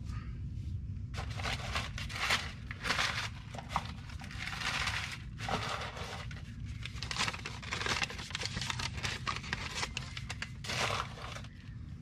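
Irregular crinkling and scraping of hands handling a new disc brake pad and tools, a string of short noisy rustles, over a steady low hum.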